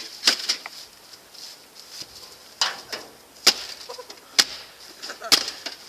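A golf club striking the sheet-metal casing and parts of a gutted microwave oven. There are about six sharp, separate hits, some ringing briefly, roughly one a second.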